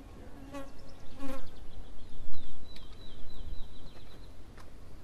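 Motorized equine dental float buzzing as it grinds down a horse's teeth, loudest about halfway through.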